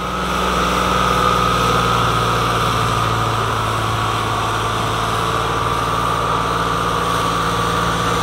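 New Holland 6010 tractor's diesel engine running steadily under load as it pulls a disc harrow through tilled soil, getting slightly louder in the first second.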